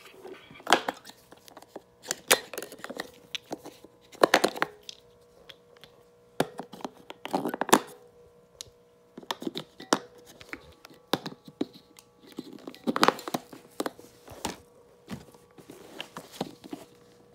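Irregular clicks, knocks and scrapes of a plastic baby toy being handled at its battery compartment, fingers working the batteries, over a faint steady hum.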